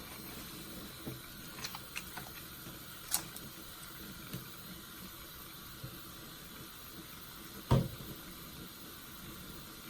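Wet, soapy sponge being squeezed, giving a faint crackling, hissing lather sound with a few small clicks. One sharp thump about eight seconds in is the loudest sound.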